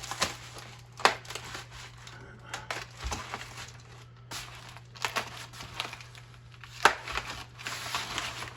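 Packing material being cut, torn and crumpled by hand while unwrapping a rifle, with three sharp knocks: near the start, about a second in, and near the end. A steady low hum runs underneath.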